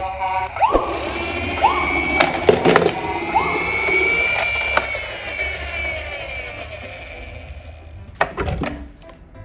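Toy police car and ambulance electronic sirens sounding, with three short rising sweeps and a high held tone, over a whirring rattle that fades in the second half. Plastic clicks are scattered through it, with a cluster near the end.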